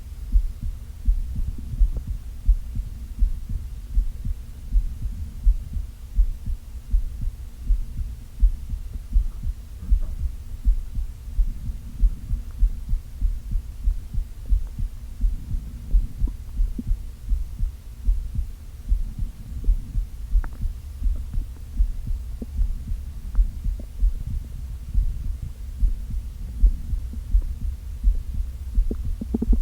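A heartbeat, about one and a half low thumps a second, picked up by a microphone held against the belly, over a steady low hum. A few faint brief sounds come through above it.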